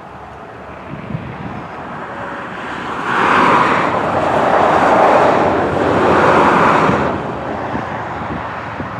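Engine noise of a small twin-engine business jet on final approach with gear down. It swells to a loud peak about three seconds in, shifts and wavers through the peak, and eases off after about seven seconds.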